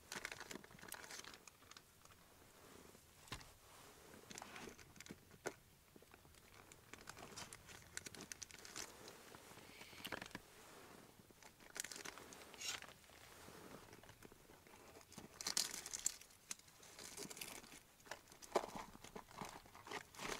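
Faint, on-and-off crinkling and rustling of plastic soft-lure packaging being handled, with small clicks in between; the louder crinkles come in the second half.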